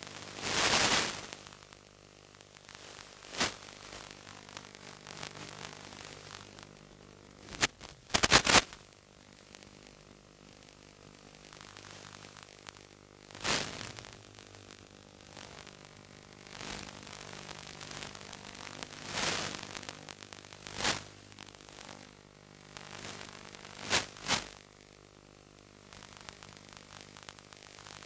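Hiss and static of an analog 5.8 GHz FPV video downlink, broken by about ten sharp crackling bursts of static as the radio signal breaks up, over a faint steady low hum.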